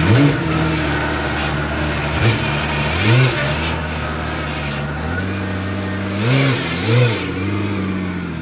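1990 Jeep Cherokee XJ engine running on freshly rebuilt fuel injectors. It holds a steady speed with several short throttle blips that rise and fall in pitch: one at the start, one about three seconds in, and two quick ones close together near the end.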